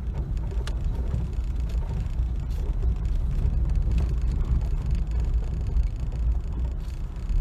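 Dacia Duster driving slowly over a rough dirt track, heard from inside the cabin: a steady low rumble of engine and tyres, with a few light knocks.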